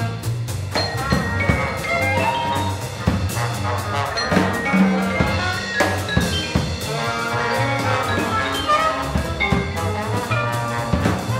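Jazz sextet playing: trumpet, alto saxophone and trombone lines over walking double bass and drum kit, with frequent drum and cymbal hits.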